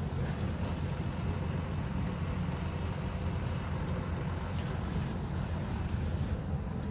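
Ford Escort RS 1600i's 1.6-litre four-cylinder engine idling, heard at the tailpipe as a steady low rumble.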